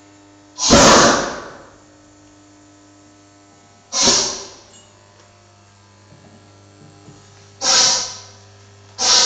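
Gas flame igniting in a steel tube in four sudden bursts, each a whoosh that fades within about a second, roughly three to four seconds apart and closer near the end. A steady low mains hum lies underneath.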